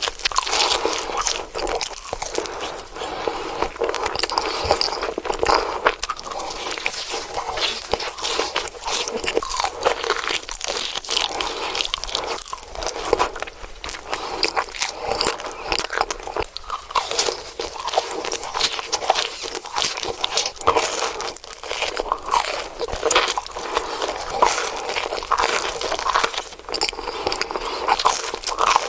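Close-miked ASMR eating: a person biting and chewing crunchy food, with dense, irregular crunches and crackles.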